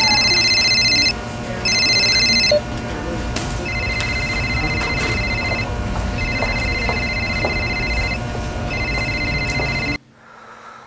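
Phone ringing: an electronic trilling ring in repeated bursts of about one to two seconds with short pauses, the first two louder, over a low background rumble. About ten seconds in, all of it cuts off suddenly.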